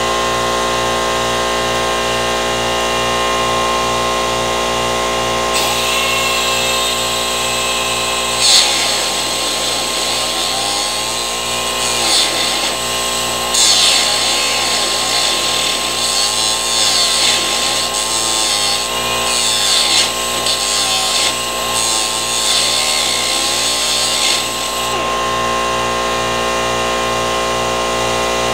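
Handheld electric power tool, such as a grinder, running steadily. From about six seconds in until near the end it works against metal with a harsh, uneven grinding hiss and sudden flares, then runs free again.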